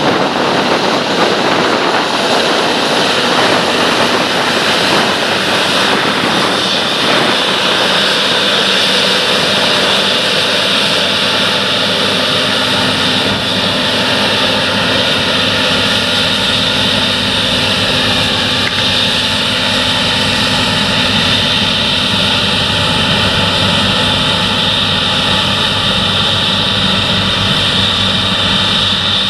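John Deere combine harvester and tractor engines running steadily at close range as the combine unloads wheat into a grain trailer on the move: a loud, even machinery drone with a steady hum and a high whine.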